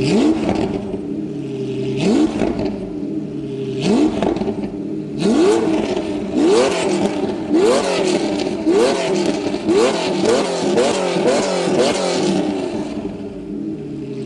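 Ferrari 512 BB's flat-twelve engine through a Kreissieg valved F1 exhaust, blipped on the throttle about a dozen times. Each blip is a quick rev that rises and falls back. The first few come about two seconds apart, the rest about one a second, and it settles back near the end.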